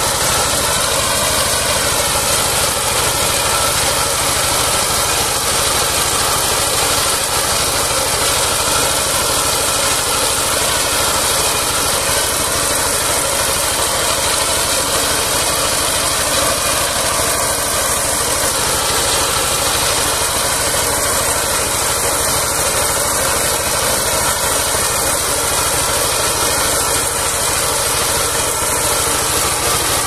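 Engine of a small ride-on rice reaper running steadily as the machine cuts through standing rice.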